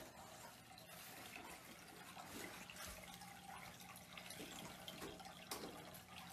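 Near silence: faint bathroom room tone with a few soft rustles as a cat paws and tears at a toilet paper roll, and a light click about five and a half seconds in.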